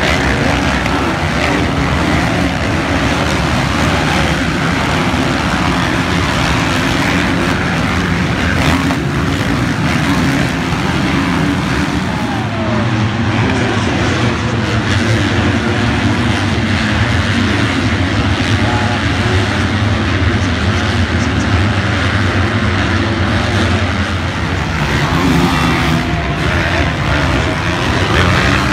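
Several motocross bikes racing around a dirt track, their engines revving up and down in one continuous mix. A steadier, stronger engine note comes in about halfway through.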